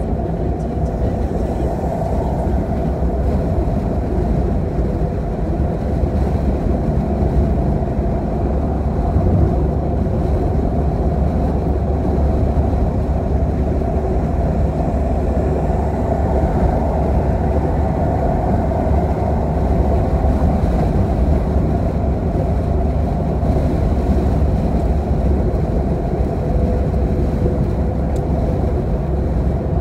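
Road noise inside a car cruising on a motorway: a steady low rumble of tyres and engine that stays even throughout.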